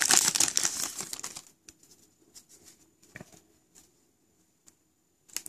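Foil wrapper of a trading-card pack crinkling loudly as it is opened, dying away after about a second and a half. A few faint clicks of the cards being handled follow.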